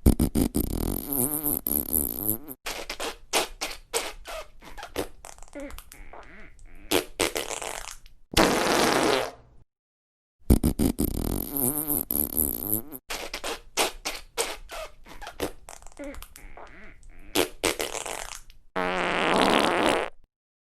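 Messy, wet-sounding farts: two long runs of rapid sputtering pops, each ending in a longer held fart, with a short pause about ten seconds in.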